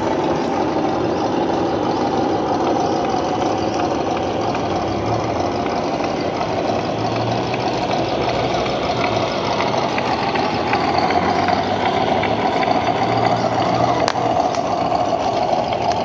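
Electric motor and gearbox of a radio-controlled off-road truck running steadily, a little louder from about eleven seconds in.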